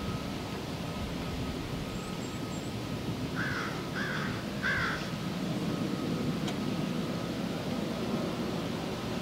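A crow cawing three times in quick succession, a little over three seconds in, over a steady low background rumble.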